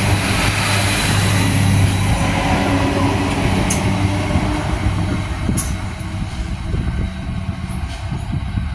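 Two-car Adelaide Metro 3000/3100 class diesel railcar set running past and away, with a low engine hum over wheel-and-rail noise and a few sharp clicks. It fades as the train recedes in the second half.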